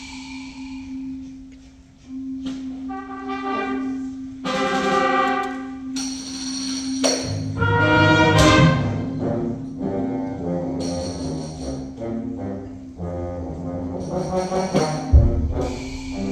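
School concert band playing, brass, saxophones and woodwinds entering in phrases over a steady held low note and building to a loud peak about halfway through. A low thump sounds near the end.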